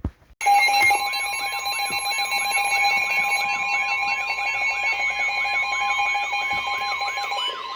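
Emergency Alert System attention signal: a loud steady two-tone alarm starts about half a second in, with a warbling alarm tone sweeping up and down about three times a second over it. Near the end part of the steady tone drops out while the warble carries on.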